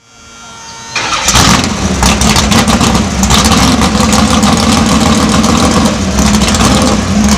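A car engine starts about a second in and then runs loudly and steadily.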